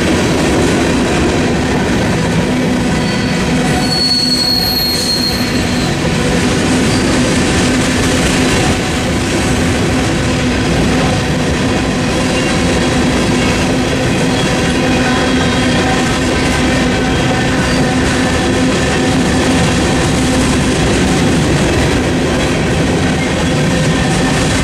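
Union Pacific freight train of covered hopper cars rolling steadily past, its steel wheels running over the rails. A brief high wheel squeal comes about four seconds in.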